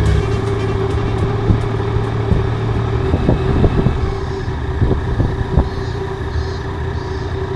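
Yamaha Niken GT's three-cylinder engine running steadily as the bike rolls along at low speed. The engine note drops about three seconds in as it eases off, with a few light clicks around then.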